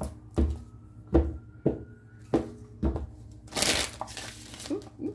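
A tarot deck being shuffled by hand: a string of sharp taps and knocks about every half second as the cards are handled, with a short rasping riffle of cards a little past halfway.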